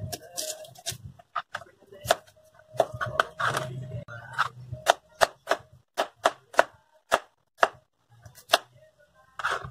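Chef's knife slicing a red onion, the blade knocking sharply on the cutting board with each cut; the knocks are irregular at first, then come in a steady run of about three a second in the second half.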